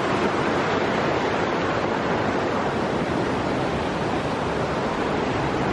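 A fast, shallow mountain river rushing over rocks, a steady, unbroken noise of whitewater.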